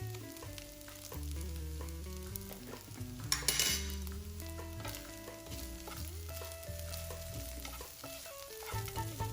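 Fried rice sizzling in a hot pan as it is stirred, with one louder scraping stroke about three and a half seconds in, over background music.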